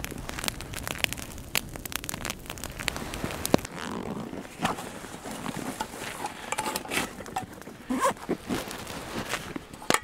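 Wood campfire crackling with irregular sharp pops, mixed with short rasping and rustling sounds of handling.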